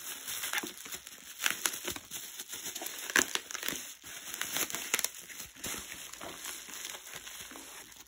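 Plastic bubble wrap crinkling and rustling as it is unwrapped by hand, with irregular crackles and small clicks throughout.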